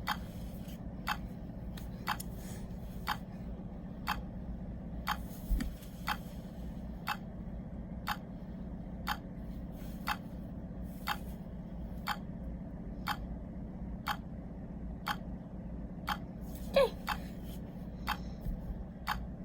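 GSM alarm keypad ticking out its exit-delay countdown after being armed: short, sharp beeps about once a second, over a steady low hum. A brief louder noise comes shortly before the end.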